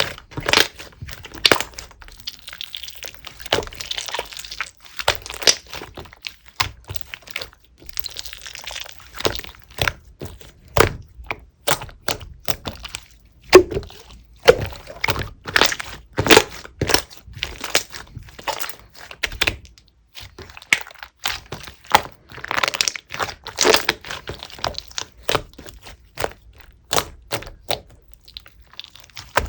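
Clear slime being squeezed, pressed and stretched by hand, with many sharp clicking pops and a few longer squishy, crackling stretches.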